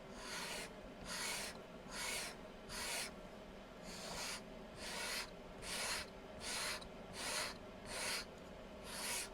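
Carving knife being sharpened on its second side: the blade is drawn across the sharpener in about eleven short, faint scraping strokes, roughly one every three-quarters of a second.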